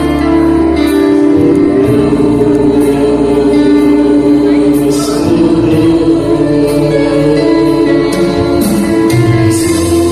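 Arabic Christian hymn sung by a group of voices over a remixed instrumental backing, with long held notes.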